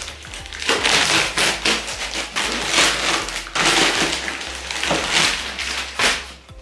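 Plastic wrapping film crinkling and tearing as it is pulled off a cardboard shipping box, with the box being handled, in a run of loud crackling bursts with short gaps.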